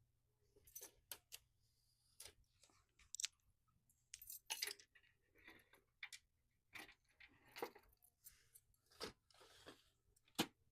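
Faint, irregular clicks and short rustles of packing tape and plastic protective pieces being pulled off a printer by hand.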